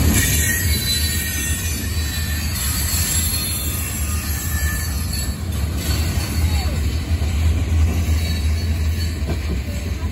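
Freight train cars, covered hoppers then tank cars, rolling steadily past with a deep rumble of steel wheels on the rails. A faint high-pitched wheel squeal rides over it, mostly in the first half.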